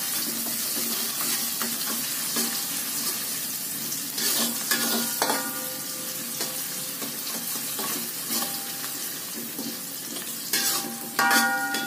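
Shallots and garlic sizzling in hot oil in an aluminium wok, stirred with a metal spatula. The spatula scrapes and rings against the pan about four seconds in and again near the end.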